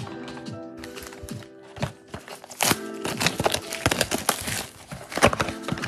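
Background music, with a cardboard Donruss football trading-card blaster box being handled and opened from about two and a half seconds in: a dense run of clicks and rustles over the music.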